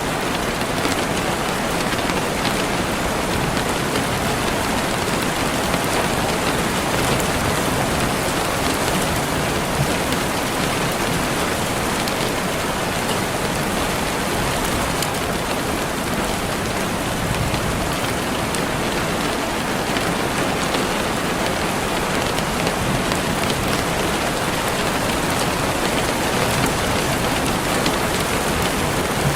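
Steady rain falling, a dense even hiss with fine pattering of drops on a surface.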